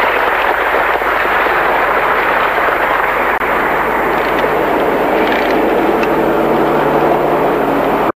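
Steady, loud rushing background noise with a low hum underneath, picked up by an old camcorder microphone in a large hall.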